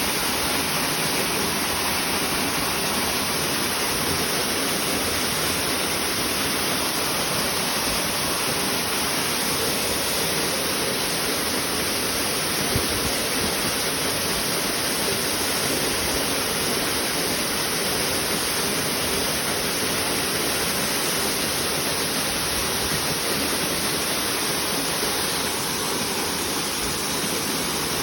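Waterfall: water falling into a pool and rushing on downstream, making a steady, unbroken rush of noise.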